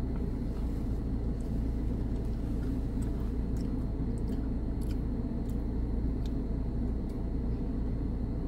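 Steady low rumble of a car heard inside its cabin, with a few faint crunches of a small vanilla cookie being chewed.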